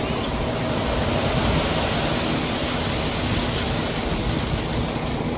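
Crushed stone sliding out of a raised end-dump trailer body and pouring onto a pile, a steady rushing noise, with the truck's engine running underneath.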